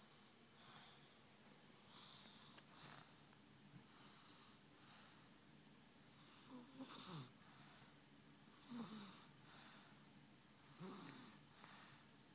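A two-year-old girl snoring softly in her sleep, one snoring breath about every two seconds. The snores grow louder and more rasping from about halfway through.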